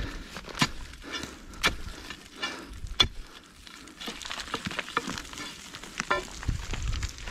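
Footsteps crunching and rustling through dry leaves, twigs and scrub, with three sharp cracks in the first few seconds and denser crackling in the second half.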